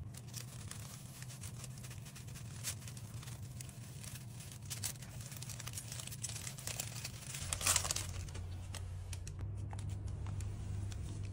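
Paper towel rustling and crinkling as it is handled on a countertop, with a louder rustle a little past the middle, over a low steady hum.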